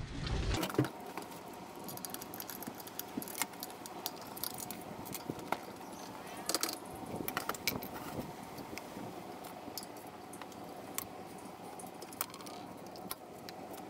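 Scattered light metallic clicks and clinks as a reel mower's wheel is pulled off its axle and a screwdriver works at the bare shaft end to remove the small drive parts.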